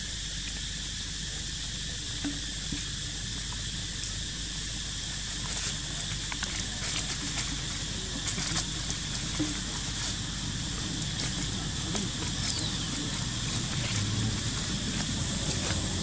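Outdoor woodland ambience: a steady high hiss with scattered soft rustles and clicks of dry leaves as macaques move over leaf litter, thickest from about five to nine seconds in.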